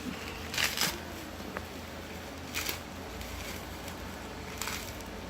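Plastic bubble wrap being grabbed and squeezed: four short crackling bursts, two close together about half a second in, one near the middle and one near the end.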